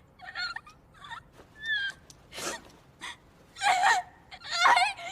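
A young woman's voice gasping and whimpering in panic: a string of short breathy gasps and squeaky cries, with shaky, wavering cries in the last couple of seconds.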